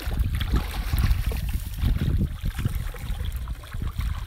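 Muddy water sloshing and splashing irregularly as hands grope through a shallow pond bottom, over a low wind rumble on the microphone.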